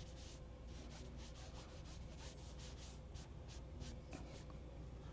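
A sponge rubbing and dabbing paint onto a canvas on an easel in quick, faint, scratchy strokes, several a second.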